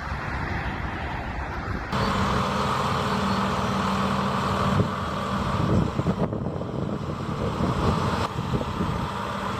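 Heavy truck engines running, heard as several short clips that change abruptly every second or two.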